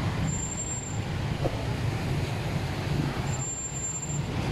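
Street traffic passing close by: cars, motorcycles and motorcycle tricycles running in a steady low rumble. A thin high-pitched tone sounds briefly twice.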